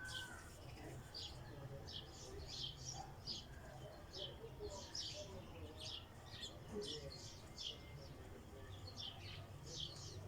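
Birds chirping, many short high calls in quick irregular succession, over a low steady hum.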